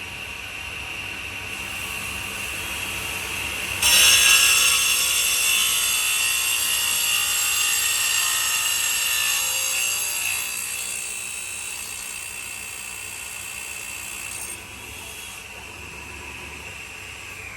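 Power saw cutting a granadillo hardwood slab to length: the blade whines steadily, bites loudly into the wood about four seconds in and cuts for several seconds, then runs free and starts to wind down at the end.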